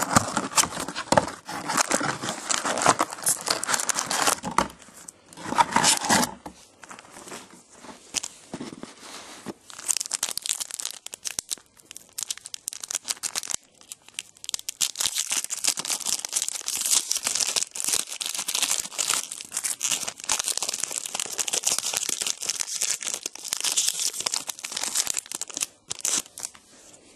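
Trading-card box and packs being torn open by hand: the wrappers tearing and crinkling in repeated bursts of rustling, loudest in the first few seconds.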